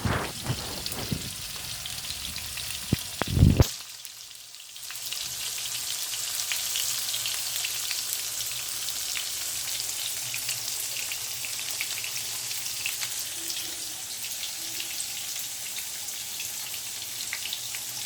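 Tofu slices sizzling and crackling as they shallow-fry in oil in a pan. A few handling knocks in the first seconds and one loud thump about three and a half seconds in, after which the sizzling comes back fuller and steady.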